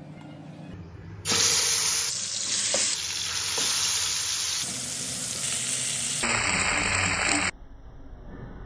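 Masala-marinated chicken drumsticks shallow-frying in hot oil in a pan: a loud, steady sizzle that starts about a second in, shifts abruptly in tone a few times, and cuts off suddenly near the end.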